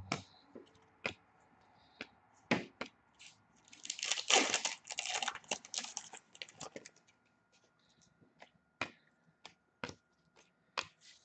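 A trading-card pack's wrapper being torn open and crinkled in a crackling rustle lasting about three seconds, about four seconds in. Before and after it come light clicks and taps of cardboard cards being handled and flicked through.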